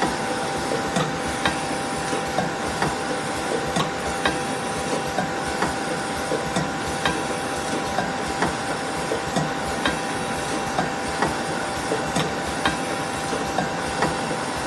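Automatic auger powder filling machine running, with its servo-driven augers, a steady machine hum with a held tone and short sharp clicks about twice a second.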